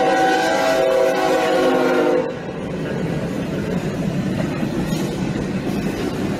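Freight train's multi-tone air horn sounding a held chord that cuts off about two seconds in, followed by the steady rumble of the locomotive and freight cars rolling past the crossing.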